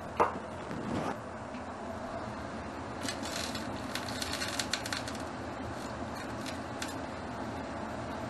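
Kitchen handling sounds: a single ringing metal clink, like a stainless-steel bowl tapped or set down, just after the start, then a soft knock. About three seconds in comes a quick run of small crisp clicks and crackles, thinning out over the next few seconds.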